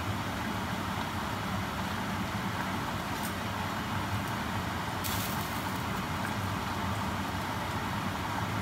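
Saucepan of water at a full boil on the hob with spaghetti in it: a steady rumbling hiss with a low hum under it, and a brief scrape of the wooden spatula against the pasta about five seconds in.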